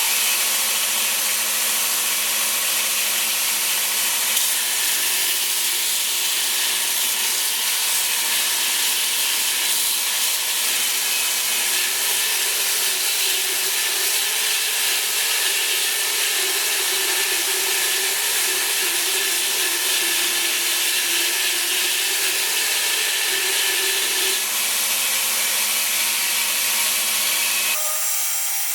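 Homemade 2x48 belt grinder running, its abrasive belt grinding a workpiece with a steady, hissing rasp over the motor's hum. The low hum drops out about a second before the end.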